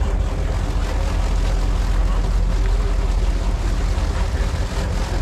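A sportfishing boat's engines idling: a steady low rumble with no change in pitch.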